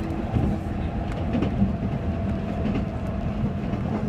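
JR 185 series electric train running, heard from inside the passenger car: a steady rumble of wheels and traction motors with a faint steady whine, and scattered clicks as the wheels cross rail joints and points.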